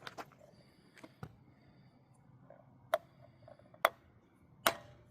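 Sharp clicks and knocks of tools or car parts being handled during a tire change: a few faint clicks, then three loud knocks about a second apart, the last ringing briefly.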